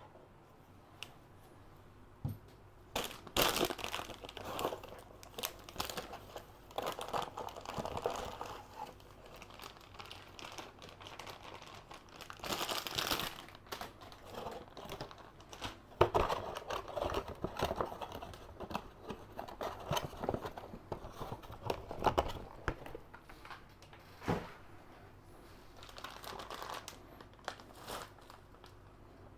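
Crinkling and rustling in irregular spells, with scattered small clicks and knocks, as PC parts and their packaging are handled.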